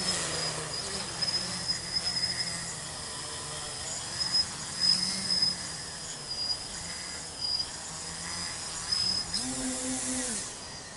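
Tricopter's three 2216 900 kV brushless motors with 8x4.5 props humming in flight, the pitch wandering up and down with the throttle and jumping higher for about a second near the end.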